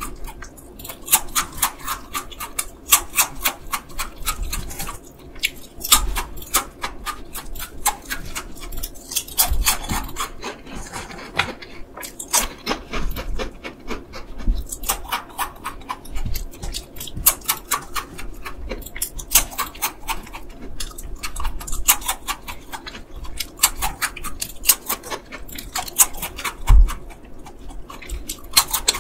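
Crispy chocolate 토끼와거북이 snack chips crunched and chewed in quick runs of sharp crunches with short pauses between bites, and one low thump near the end.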